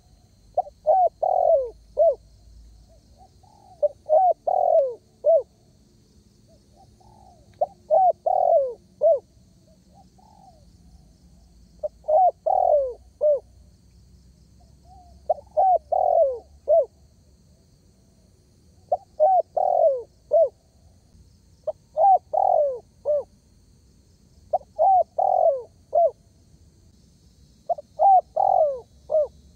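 Spotted dove cooing: a phrase of several coos roughly every three to four seconds, about nine phrases in all.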